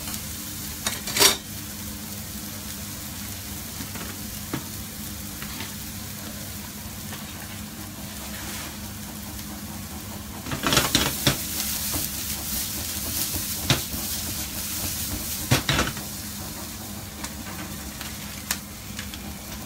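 Diced onion and minced garlic sizzling steadily in oil in a nonstick frying pan as they are sautéed soft and fragrant. A silicone spatula clacks against the pan about a second in, and stirs and scrapes the onions round the pan in short bursts about halfway through and again a little later.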